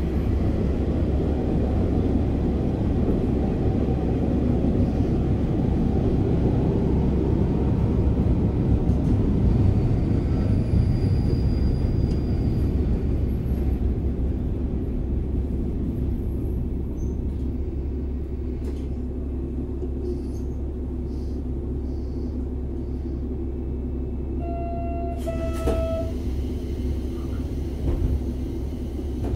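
Diesel railcar's Komatsu replacement engine idling while the car stands with its doors open, a steady low rumble that is a little louder in the first half and eases after about 16 seconds. A short high beeping tone sounds about 25 seconds in.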